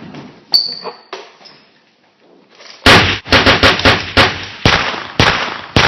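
Gunshot sounds. There are a couple of single shots in the first second or so, then a fast volley of about nine shots starting about three seconds in.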